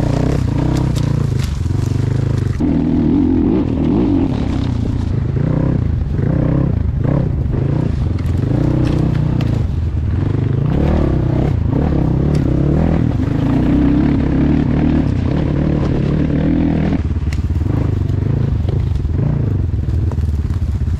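Off-road vehicle engine running while being ridden, the throttle opening and easing so that the pitch rises and falls.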